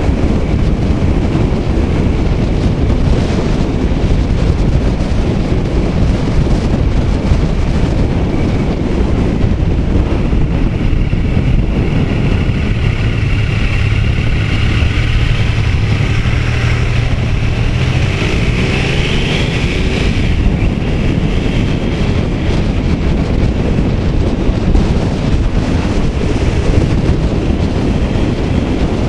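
Wind buffeting the microphone of a helmet camera on a moving motorcycle, over the bike's engine. About halfway the wind eases as the bike slows at a junction and a steady engine note comes through, then the engine rises as it pulls away and the wind noise builds again.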